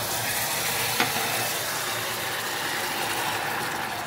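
Hot caramelized sugar in a stainless steel pot sizzling and hissing steadily after water has been poured in to turn it into caramel syrup, easing off slightly over the seconds. A single sharp knock about a second in.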